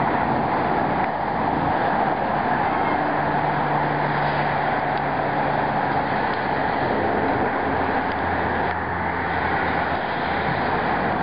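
Steady hiss of heavy rain falling in a thunderstorm.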